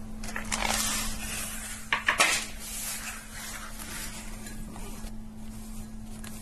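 Rustling with a cluster of sharp clicks about two seconds in, then a few light ticks, over a steady low hum.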